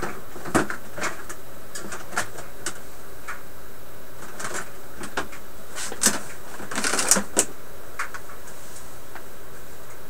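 Irregular sharp clicks and light knocks of hand tools and parts being handled on a tube radio chassis, as work on its power cord begins, with a quick run of clicks about seven seconds in.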